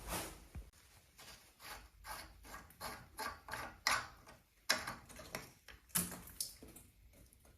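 A tool clicking and scraping on metal fittings as the water-pipe connections on a water heater are unscrewed, in irregular sharp clicks a few times a second.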